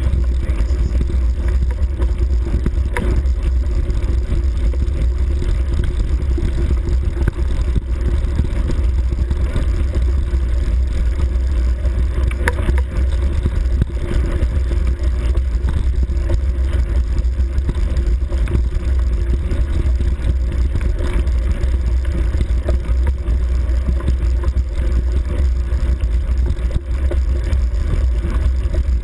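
Steady low rumble of a bike riding over a bumpy grass trail, with wind buffeting the bike-mounted camera's microphone and a few faint knocks.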